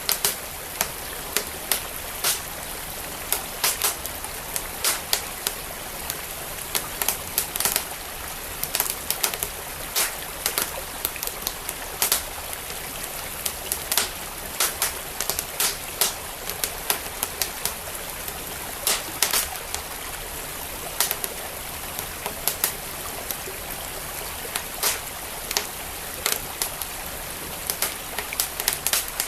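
Wood fire crackling with frequent, irregular sharp pops over the steady rush of a flowing stream.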